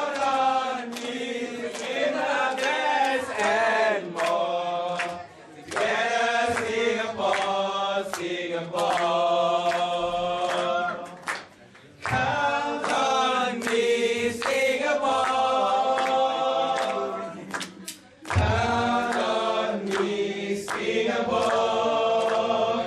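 Two men singing a song together into microphones, in long phrases with short breaks about 5, 11 and 18 seconds in.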